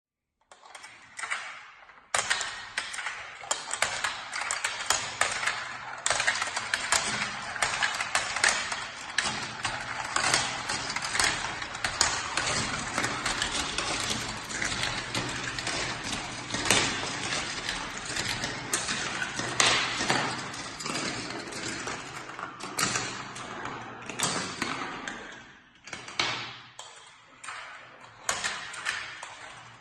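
Steel GraviTrax marbles rolling and clattering down plastic marble-run track, a dense stream of small clicks and rattles that thins out briefly near the end.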